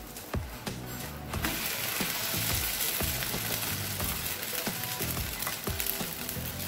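Semolina-and-egg chila batter sizzling as it fries in a nonstick pan; the sizzle comes in about a second and a half in and carries on steadily. Background music with a steady beat plays underneath.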